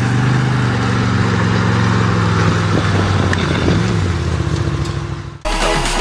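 Side-by-side UTV engine running steadily while the machine is driven up on two wheels. It fades out near the end and electronic dance music cuts in abruptly.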